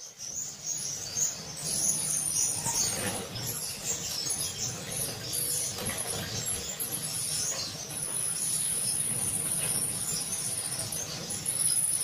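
Young parrot finches chirping in a cage: many short, high call notes overlapping. A thin, steady high-pitched tone comes and goes from about two seconds in and holds steadily through the second half.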